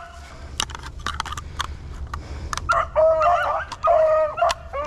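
Pack of beagles giving short, high yelping cries, several in quick succession starting nearly three seconds in, as the hounds open on a rabbit's scent. Before them, dry brush and twigs crackle underfoot.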